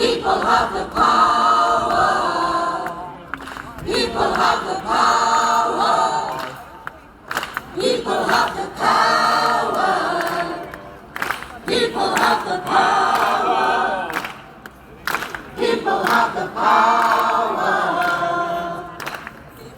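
A group of voices singing together in phrases about three seconds long, with short breaks between them.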